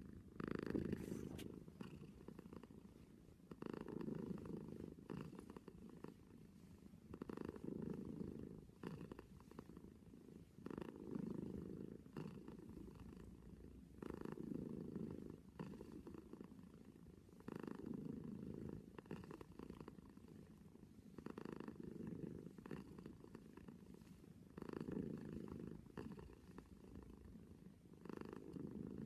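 Domestic cat purring close up, the purr swelling louder and easing off in a regular cycle about every three and a half seconds with its breathing.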